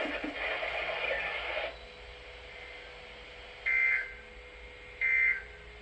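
A radio broadcast voice ends, and then two short, loud, screechy data bursts come about a second and a third apart. These are the EAS end-of-message (NNNN) SAME data tones sent over NOAA Weather Radio.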